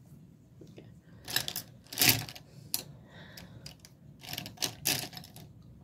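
Makeup packaging being handled: a highlighter compact and other items on the table clicking and clattering in a few short bursts, the loudest about two seconds in and another cluster near the end.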